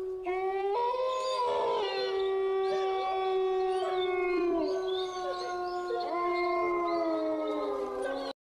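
Horror-film background score: a steady eerie drone overlaid with long wailing, howl-like tones that glide up and down. It cuts off suddenly near the end.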